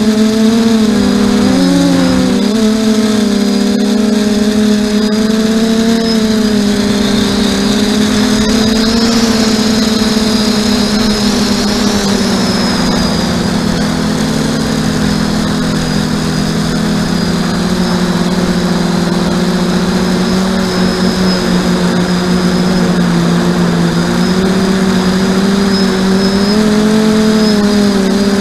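Motors and propellers of an FPV aircraft, recorded by its onboard camera, droning steadily in flight with a thin high whine above. The pitch wobbles briefly about 2 seconds in, then sags a little lower for a stretch past the middle before rising again.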